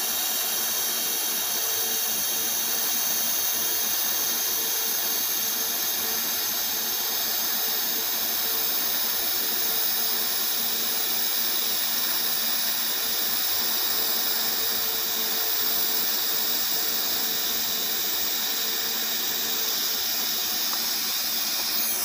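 TIG welding arc on a carbon steel tube-to-header joint, a steady hiss with a thin high buzz, stopping right at the end as the arc is broken.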